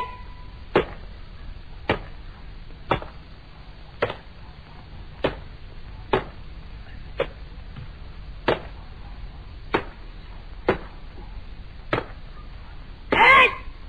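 Sharp wooden strikes at a steady rate of about one a second, a dozen in all, from a wooden practice sword swung in solo aikido training. About 13 seconds in there is one loud shout.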